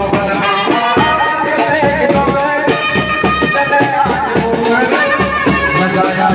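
Live band music played loud through a microphone and loudspeakers: a melody line over a quick, steady drum beat with a shaker-like rattle.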